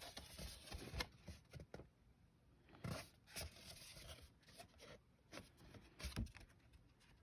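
Faint handling noises: a scattering of light scrapes and taps from a cardboard trading-card box being moved about.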